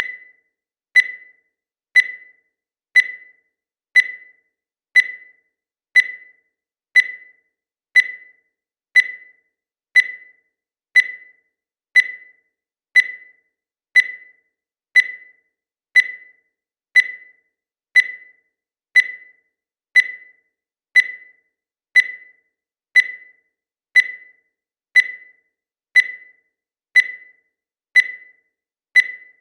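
Digital countdown timer beeping once every second: a short, high-pitched electronic beep that fades quickly, with silence between beeps.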